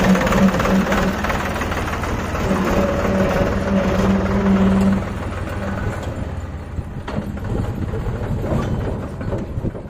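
Tractor diesel engine running steadily, its sound dropping to a quieter running about five seconds in.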